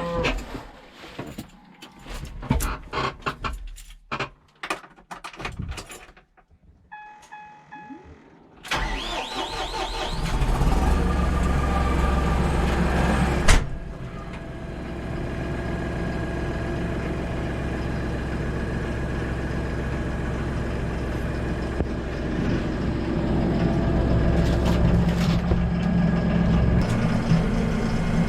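A few knocks and clicks, a short electronic chime, then a vehicle engine starts about nine seconds in and keeps running steadily at idle, with one sharp click partway through.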